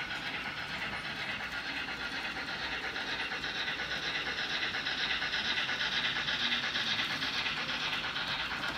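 H0-scale Märklin model of the SBB C5/6 steam locomotive running along the layout track with its freight cars: a steady rolling rattle of small wheels and running gear on the rails, growing a little louder from about four seconds in.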